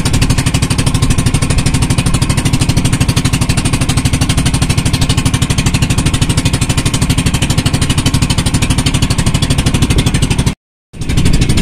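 Bangka outrigger boat engine running steadily under way, a loud, fast, even chugging of closely spaced beats. The sound drops out completely for a moment near the end.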